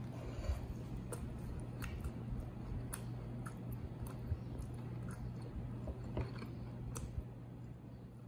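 Someone chewing a bite of a tortilla wrap with greens and meat, a run of small soft clicks over a steady low hum, fading near the end.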